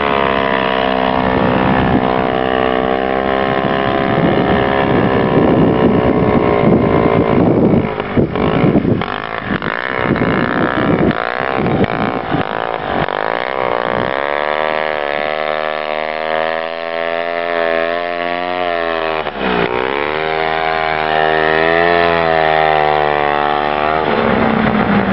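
Vintage Ski-Doo snowmobile's small two-stroke Elan engine running hard. It holds a steady high note at first, turns choppy and uneven partway through, then revs up and down again and again as the throttle is worked on the hill climb.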